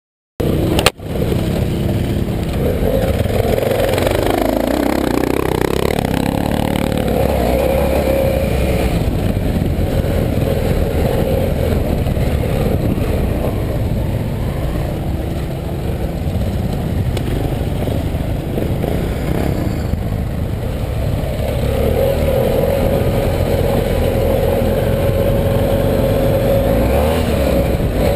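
BMW F 800 GS parallel-twin engine running under load off-road, revs dipping and rising with the throttle, over a steady low rumble and clatter from the rough track. The sound cuts in abruptly with a click just under a second in.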